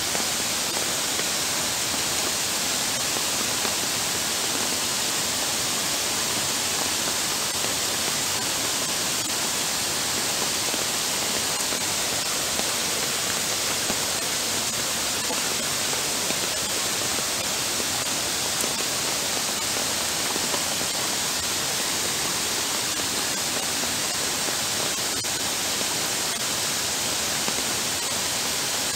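Heavy rain and floodwater rushing across a paved walkway, a steady, unbroken hiss.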